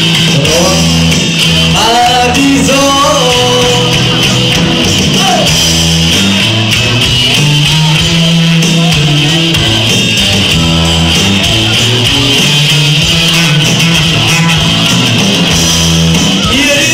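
Live band playing an upbeat dance song on electric guitar, keyboards, bass and drums, with singing most prominent in the first few seconds over a steady repeating bass line.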